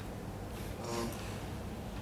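A pause in the stage dialogue: a steady low hum of the hall, with one faint, short breath-like sound from an actor about a second in.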